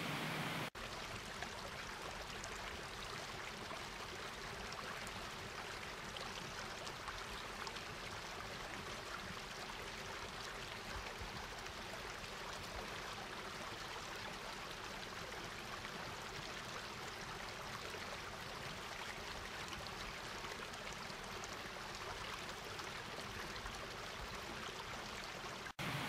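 Steady rushing of river water over rapids and small cascades. It cuts in just under a second in and cuts off just before the end.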